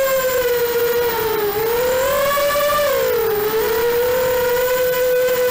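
Racing quadcopter's Emax 2204 2300kv brushless motors and three-blade 5045 props whining, recorded by the onboard camera. The pitch wavers with throttle, dipping about a second and a half in and again just past three seconds before climbing back.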